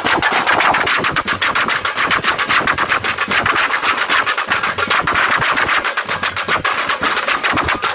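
Several frame drums beaten with sticks in a fast, steady run of strokes, about ten a second.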